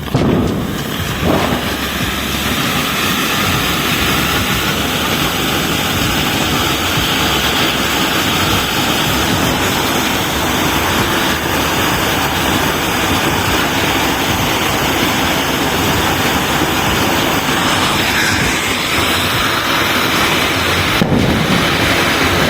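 Fireworks burning with a steady, dense hiss and crackle that starts suddenly.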